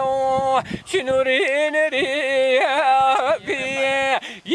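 Solo unaccompanied male voice singing Siyachamana, the Hawrami Kurdish song style, holding long notes broken by quick turns and bends in pitch. The voice breaks off briefly about a second in and again near the end.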